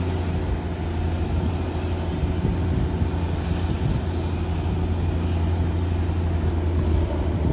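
Boeing 787-8 Dreamliner's jet engines running at low power: a steady low hum under an even hiss.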